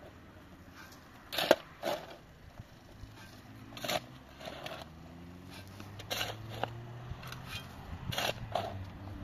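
A mattock striking hard, stony earth four times, about every two seconds, each blow followed by a softer scrape of loosened soil and stones.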